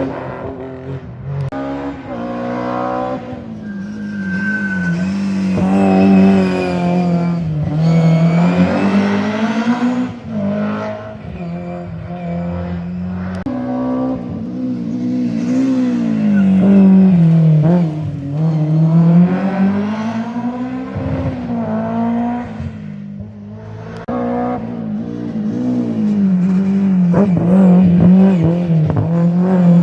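Rally cars' engines at full throttle, revving up and down repeatedly through gear changes and corners as they pass, with a short tyre squeal.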